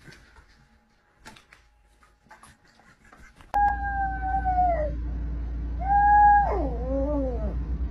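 A dog howling: two long held howls, each sagging slightly at the end, then a wavering howl that falls in pitch, over a steady low hum. Before the howling, about the first three and a half seconds are nearly quiet, with a few faint clicks.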